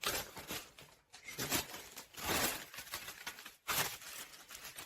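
A parcel's packaging being torn and rustled open by hand, in a string of short, irregular bursts.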